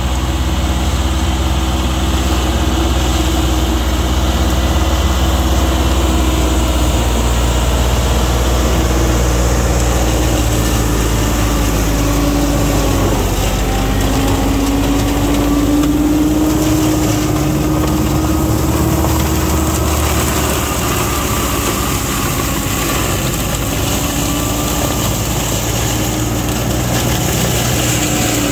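John Deere 5055E tractor's three-cylinder diesel running steadily under load, driving a rear-mounted forestry mulcher that shreds dog bush. The pitch wavers a little midway through.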